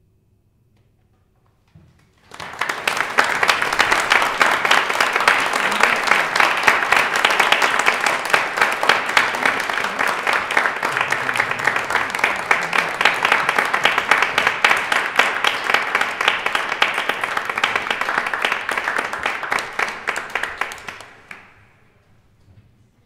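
Audience applauding: the clapping starts suddenly about two seconds in, stays even, and dies away near the end.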